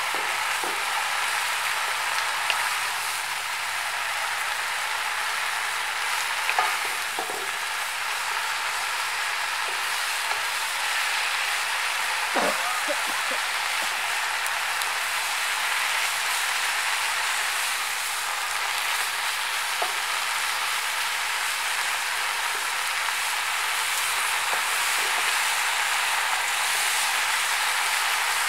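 Pumpkin shoots and leaves sizzling as they are stir-fried in a wok: a steady frying hiss, with a few light knocks of the wooden spatula and spoon against the pan.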